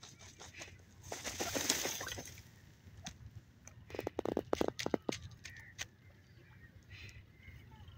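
Grey francolin foraging close by in young wheat: a burst of rustling about a second in, then a quick run of low clicking notes around four seconds in, with scattered faint ticks.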